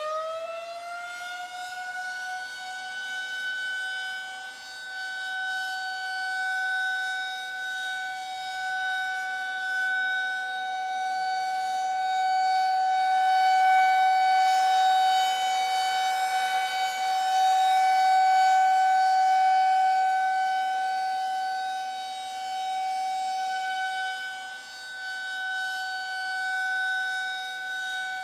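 A siren settling onto one steady high tone in the first second and holding it, its loudness slowly swelling and fading.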